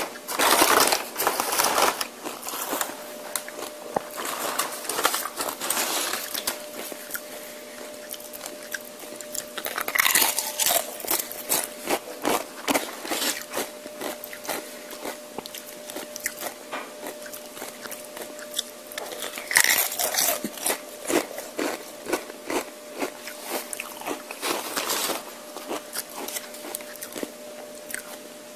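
Close-miked biting and chewing of crunchy tortilla chips: loud bursts of crunching come every few seconds, with quieter chewing in between.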